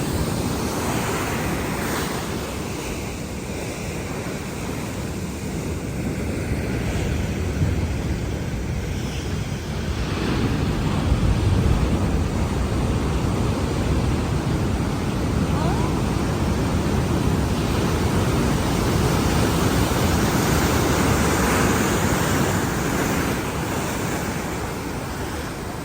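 Pacific Ocean surf breaking and washing ashore in swelling surges, with wind buffeting the microphone.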